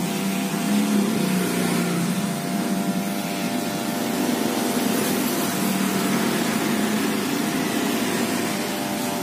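Electric hair clipper running steadily, buzzing as it trims hair at the side of the head.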